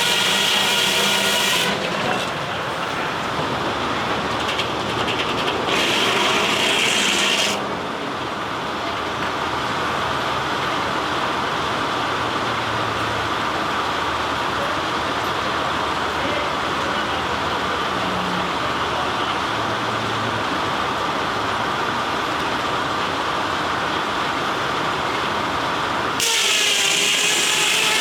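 Steam-powered sawmill saw cutting through wood with a steady, noisy ring. A steam whistle blows over it for the first second and a half, again about six seconds in for about two seconds, and again near the end.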